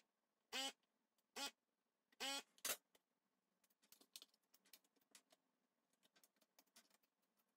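Hakko electric desoldering gun's vacuum pump firing in four short pitched bursts within the first three seconds, sucking molten solder off stepper-motor pins on a circuit board. Faint clicks and taps follow as the board and the removed parts are handled.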